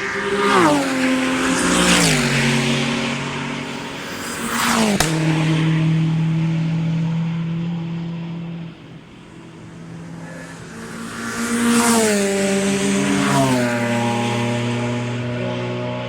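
Race cars passing at speed, one after another. Each engine note falls in steps as it goes by: a group about a second in, a single quick close pass at about five seconds, and more cars around twelve seconds. Engines of other cars are heard running steadily in between.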